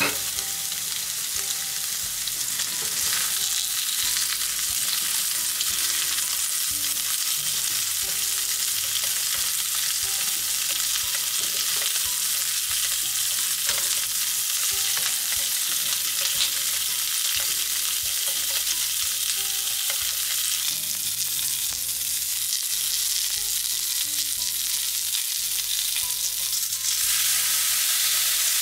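Meat-stuffed green peppers sizzling in hot oil in a frying pan, a steady hiss with a few light clicks of a utensil in the pan. Near the end the sizzle grows louder as sake is poured into the hot pan and steams.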